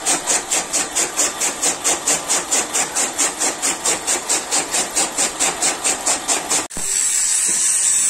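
Electric chaff cutter chopping green fodder, its flywheel-mounted blades cutting in a fast, even rhythm of about four chops a second. The chopping cuts off suddenly near the end, leaving a steady hiss.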